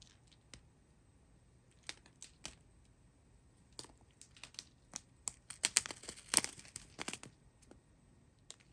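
Small plastic bags of resin diamond-painting drills being handled: scattered crinkles and clicks, busiest about six to seven seconds in.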